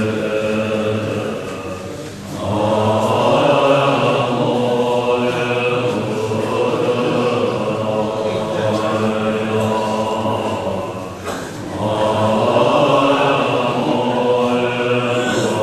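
A group of Tibetan Buddhist monks chanting together in long held phrases, breaking briefly twice, about two seconds in and again about eleven seconds in.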